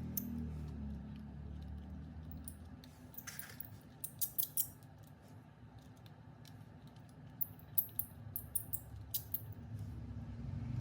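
Scattered small sharp clicks and light scrapes from hands working on small RC car parts and tools, coming in two clusters, a few seconds in and again near the end. A low steady hum runs underneath.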